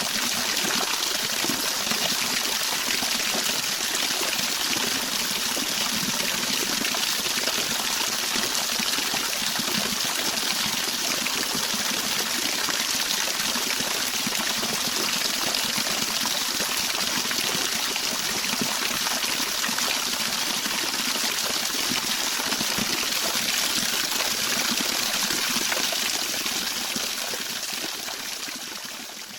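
Steady rush of flowing water, a river current or falling water, fading out over the last few seconds.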